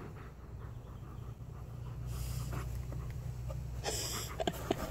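Alaskan malamute panting close to the microphone, with a short, loud breathy huff about four seconds in.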